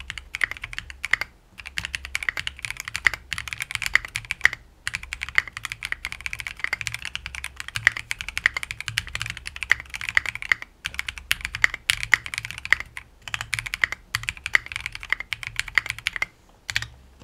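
Continuous fast typing on a stock Epomaker FirstBlood B67, a gasket-mount 65% mechanical keyboard with an acrylic case, clear polycarbonate keycaps and factory pre-lubed switches and stabilizers. Dense keystroke clicks with a few brief pauses; the typing stops about a second before the end.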